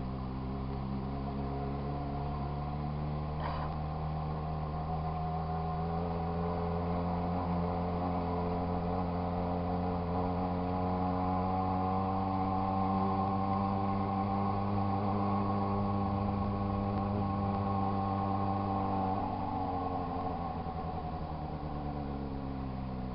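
Yamaha XJ6 motorcycle's inline-four engine idling steadily. Its idle creeps slightly higher through the middle and eases back down near the end, with a single light click a few seconds in.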